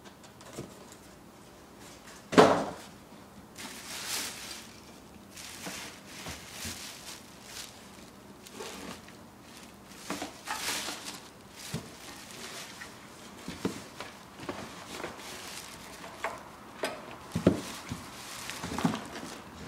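Clear plastic wrapping crinkling and rustling as hands pull it back from a boxed engine, with knocks and bumps against the cardboard box. The loudest is a single thump about two seconds in.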